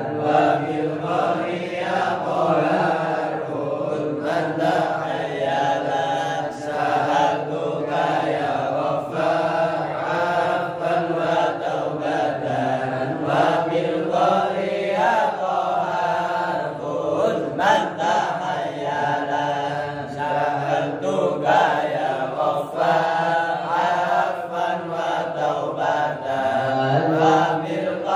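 A man reciting the Quran in Arabic: a slow, melodic chanted recitation in long held notes that rise and fall, without pause.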